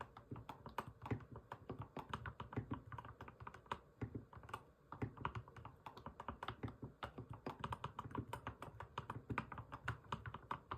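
Typing on an Mstone Groove T87A mechanical keyboard with fully lubed Milky V2 45g switches and MA-profile keycaps, keys pressed lightly in a steady, uneven stream of soft clacks, several a second. The title likens the sound to snapping pebble-shaped chocolate.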